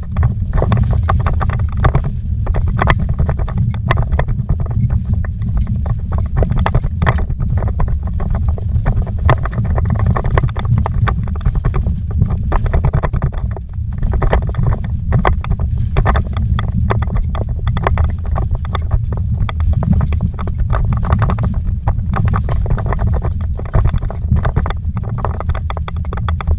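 Vehicle jolting fast over a rocky dirt trail, heard inside the cabin: a dense low rumble with frequent sharp knocks and rattles.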